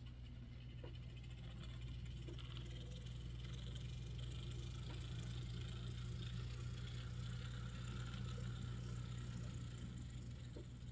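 Motor and gear drivetrain of an HO-scale Proto 2000 EMD SW9 model locomotive running on the track under power, a steady whir over a low hum that builds a little over the first couple of seconds. It runs smoothly, with no odd noises from the drivetrain.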